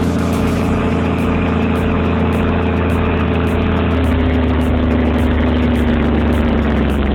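Caterpillar D7R2 bulldozer's 3176 diesel engine running steadily, its note stepping up slightly about halfway through.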